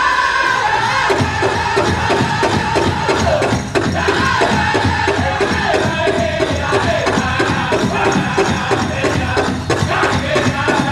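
Powwow drum group singing a men's chicken dance song over a fast, steady beat on the big drum. The drum comes in stronger about a second in.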